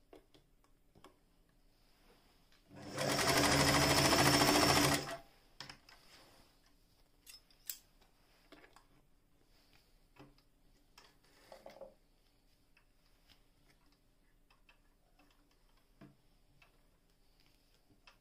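Singer 416 electric sewing machine running in one steady burst of about two seconds, a few seconds in. The rest holds only faint clicks and taps.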